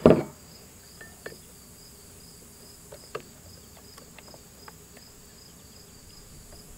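Insects chirping in a steady high pulse, about three a second, with a short knock at the start and scattered faint clicks of a tool working the chain tensioner on a Poulan chainsaw.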